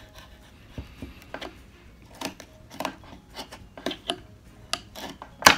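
Carving knife cutting a wooden block: short, crisp slicing snaps at irregular intervals. A sharper, louder snap comes near the end as a chunk of waste wood breaks free.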